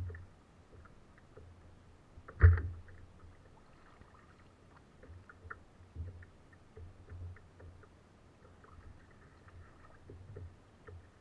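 Knocks and bumps on a fishing kayak as gear and the catch are handled aboard: one loud knock about two and a half seconds in, then soft bumps and small clicks.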